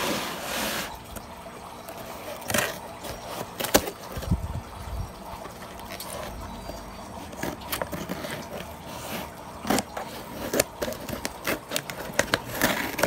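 A burst of disinfectant spray hissing onto a package for about a second. Then crackling, rustling and sharp clicks of a cardboard shipping package being handled and opened, with a brief tearing hiss near the end.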